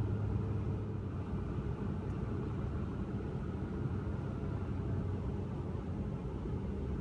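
Steady low rumble of a Ford F-350 pickup driving, engine and road noise heard from inside the cab.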